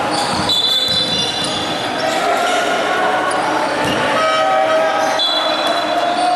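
Indoor basketball game echoing in a gym: the ball bouncing on the hardwood floor, short high squeaks, and players and onlookers calling out.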